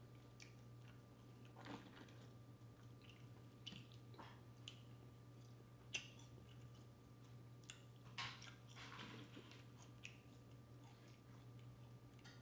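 Faint chewing and mouth sounds of a person eating fries and wings, with scattered soft clicks and a sharper click about halfway through, over a low steady hum.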